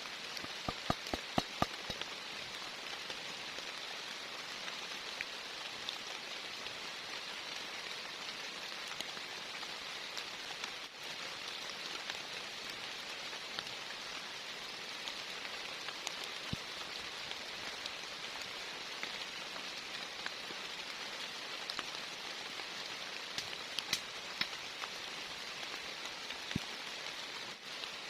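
Heavy rain falling steadily, a constant hiss. A quick run of sharp ticks sounds near the start and a few more near the end.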